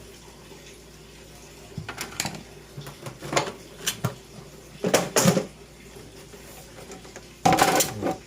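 Clatter and knocks of hard parts being handled while an air conditioner is taken apart: a few separate knocks, a louder pair about five seconds in, and the loudest rattle near the end.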